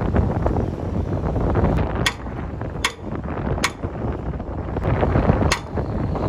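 Sharp metal knocks, four of them at uneven spacing, over a steady low rumble of workshop machinery.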